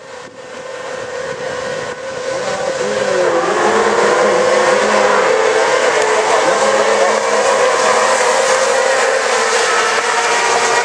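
A pack of off-road race karts running at full throttle, several engines at once, their notes dipping and climbing as they accelerate. The sound fades in at the start and grows loud over the first few seconds.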